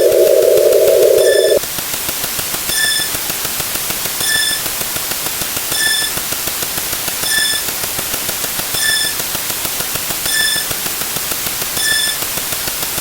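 Electronic sound effect: a loud band of hiss cuts off about a second and a half in, giving way to a fast, even crackle of clicks with a short high beep about every second and a half, seven beeps in all.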